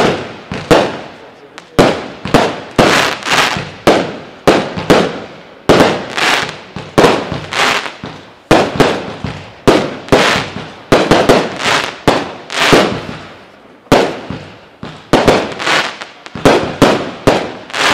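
Consumer firework battery (cake) firing a volley of shots into the sky: sharp bangs about two a second, each trailing off as the stars burst.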